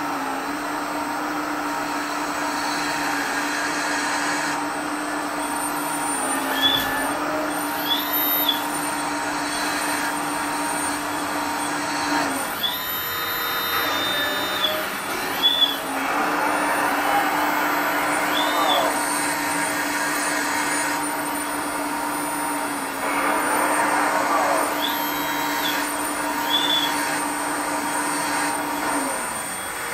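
Electric hydraulic pump of a LESU RC hydraulic excavator running with a steady whining hum as the boom and scrap grapple are worked. The hum drops out for a few seconds near the middle, with several short high chirps and a few brief knocks along the way.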